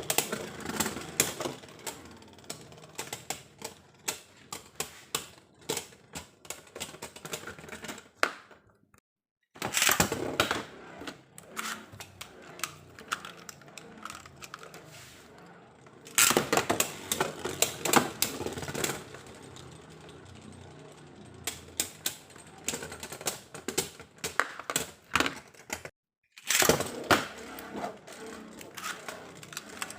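Hard plastic clicking and clattering of Beyblade spinning-top parts: rapid irregular clicks in clusters, cut off twice by brief silences.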